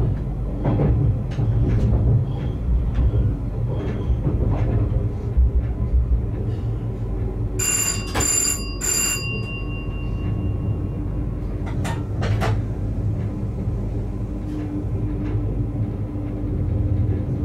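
Train running along the track with a steady rumble. About eight seconds in, a bell-like signal rings three quick strokes, and a couple of sharp clicks follow a few seconds later.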